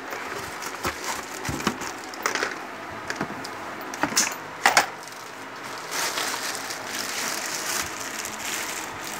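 Unpacking noise: polystyrene foam packing being handled and pulled away, with scattered scrapes and clicks and a couple of louder knocks about four seconds in, then steady crinkling of a plastic bag wrapped around a sewing machine head.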